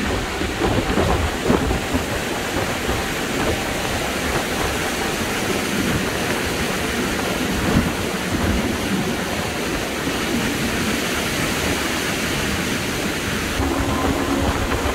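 Jet boat running at speed: a steady rush of wind and water noise, with a low engine drone coming through near the end.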